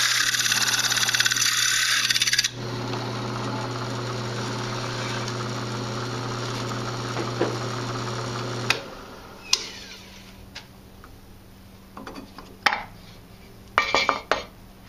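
Drill press with a hole saw cutting through an oak wheel blank: a loud, steady screech for the first two and a half seconds, then the saw spinning free with a steady hum until the motor stops about nine seconds in. Scattered knocks and a clatter near the end as the cut wooden disc is handled and worked out of the hole saw.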